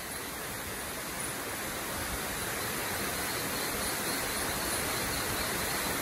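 A steady, even hiss that grows a little louder over the first couple of seconds, with faint high chirps repeating about once a second.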